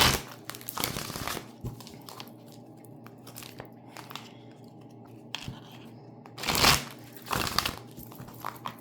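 A half-stack of a large deck of cards being shuffled by hand: several short bursts of card rustling, the loudest about six and a half seconds in, with faint card ticks between.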